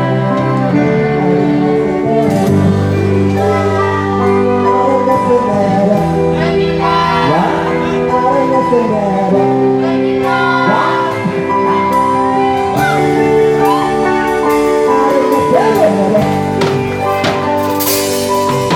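Band playing a slow ballad with a singer over sustained chords. A cymbal crash comes near the end.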